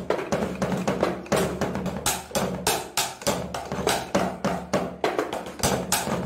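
Electronic drum kit played fast: a quick, even run of bass-drum pedal and drum hits.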